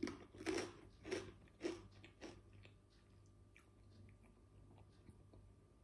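Potato chips being crunched and chewed: about five crisp crunches, roughly two a second, each fainter than the last, dying away after about two and a half seconds.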